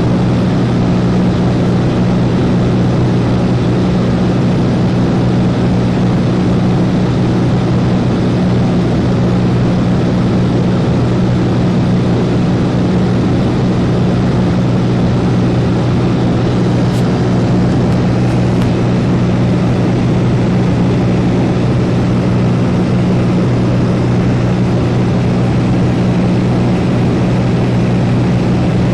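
A Cessna's piston engine and propeller heard from inside the cabin, a loud, steady drone with an unchanging low hum, as in level cruise.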